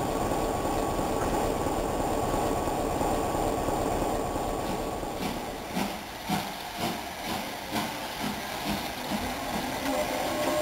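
Railway coaches rolling slowly past, their wheels clicking over the rail joints about twice a second, after a few seconds of steady, heavy running noise close beside rolling stock. A steady high squeal starts near the end.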